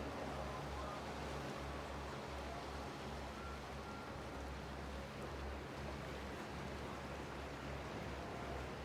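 Steady harbour ambience: an even wash of sea and wind noise with a low, uneven rumble underneath, and a few faint short tones now and then.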